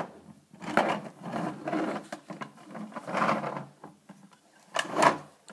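Plastic toy Batman truck being handled and moved about: irregular rattling and scraping of its plastic parts, with a few sharp clicks, the loudest near the end.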